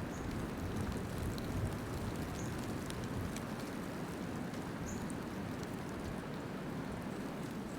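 Steady storm noise from a blizzard: wind and falling precipitation, with a few faint, short high chirps.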